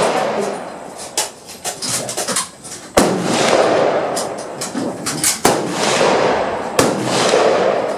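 Rifle shots: three sharp reports about three, five and a half and seven seconds in, each trailing off in an echo, with fainter shots and clicks between.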